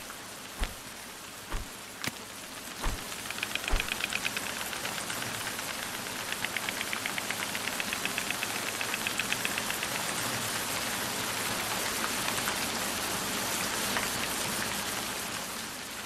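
Steady rain falling, with a few single knocks near the start. From about three seconds in until about ten seconds, white storks clatter their bills in rapid, even runs.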